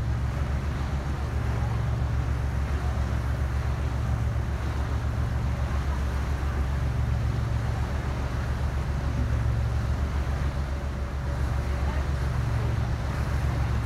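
Engine of a passenger lake cruise boat running steadily underway, a deep, even throb that swells gently every few seconds, with a steady hiss of water and wind over it.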